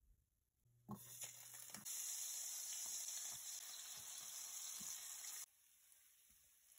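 Slices of bread frying in hot oil in a stainless steel skillet, sizzling. The sizzle starts about a second in, gets louder a second later, and drops off suddenly near the end.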